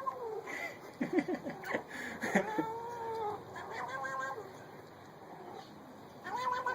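A cat meowing several times, drawn-out calls that rise and fall in pitch, with a few short clicks in between.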